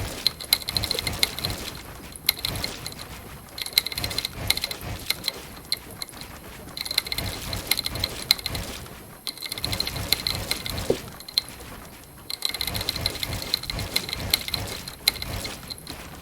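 Fast typing on a mechanical keyboard with red linear switches and new keycaps: dense runs of clacking keystrokes, broken by brief pauses a few times.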